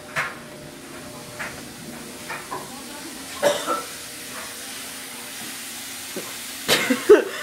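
Steady hiss of a tap running into a sink, with a few light knocks and a loud sudden noise near the end.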